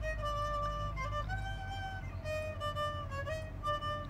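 Background fiddle music: a fiddle playing a melody of held notes, some slid into, over a steady low accompaniment.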